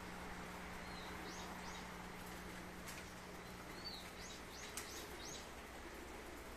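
A small bird chirping faintly in short high calls, several in a row, over a steady low hum and hiss, with a couple of faint clicks.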